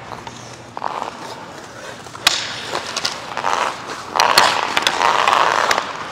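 Ice-hockey skate blades gliding and scraping across rink ice in strides, with a couple of sharp clacks about two seconds in and again past the midpoint.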